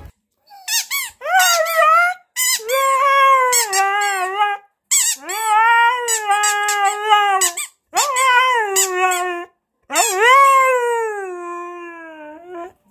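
A dog howling and whining in about six long, high, wavering calls, each rising and then sliding down in pitch, with short gaps between them; the last one trails off.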